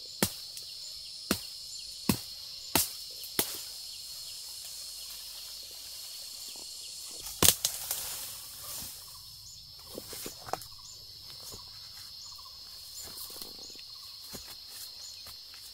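A series of sharp knocks at uneven intervals: five in the first few seconds, the loudest about halfway through, a few softer ones after. A steady high drone of insects runs underneath.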